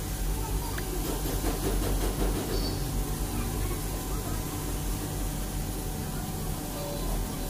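Hand pipe cutter being turned around a steel pipe clamped in a vise, its cutting wheel scraping and clicking on the metal, busiest in the first few seconds. Underneath is a steady hiss and low hum.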